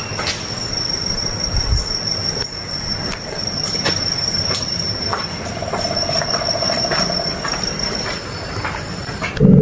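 Steady high-pitched insect drone in forest, with scattered sharp clicks of footsteps. Near the end, a louder low hum cuts in suddenly.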